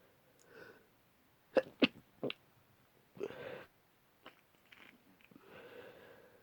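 A person with a blocked-up head cold sneezing: a few short, sharp sneezes in quick succession about a second and a half in, the first two the loudest, followed by breathy noises.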